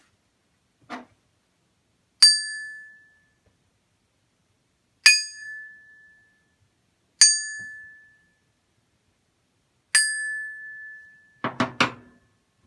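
Plumb axe head, balanced on a stick, struck four times with a small hammer. Each strike rings with a clear high tone that dies away over about a second, the last ringing longest. The speaker takes this long, resonating ring as the sign of a good-quality axe head. A light knock comes about a second in, and a short clatter of handling near the end.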